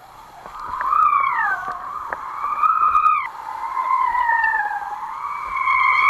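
A high, continuous whistling whine from the kitesurfing rig at speed, its pitch gliding up and down as the board speeds up and slows. It breaks off once, about three seconds in, and returns lower. Faint slaps of water on the board sound under it.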